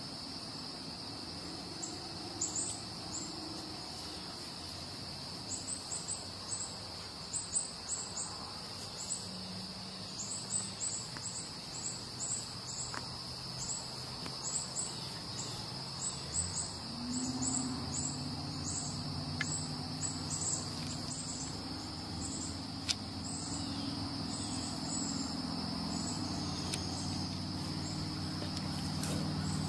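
A steady high insect drone, with short high chirps repeating two or three times a second from about two seconds in. A low steady hum joins around the middle and grows louder near the end.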